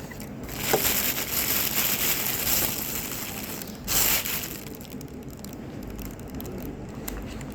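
Close-miked eating: loud crunching and crinkling noise for about three seconds, a short loud burst at about four seconds, then quieter chewing with small clicks.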